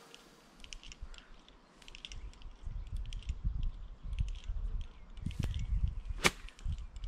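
Wind rumbling on the microphone, then a single sharp crack of a golf iron striking the ball about six seconds in.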